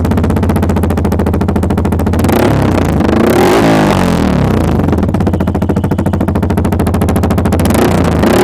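Yamaha R15 V3's 155 cc single-cylinder engine running through an SC Project MotoGP slip-on exhaust on a full-system bend pipe, with a loud exhaust note. It is revved up and back down about two and a half seconds in, and revs up again near the end.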